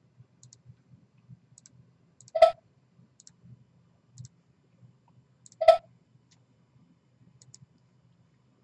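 Computer mouse clicks: two sharp, loud clicks about two and a half and five and a half seconds in, with faint light ticks between them.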